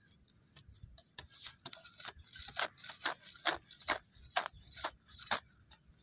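Short, sharp scrapes of a flat metal hand blade (khurpi) cutting at the roots and soil under a rolled grass turf, repeated about twice a second.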